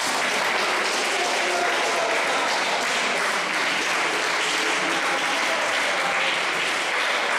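Audience clapping steadily.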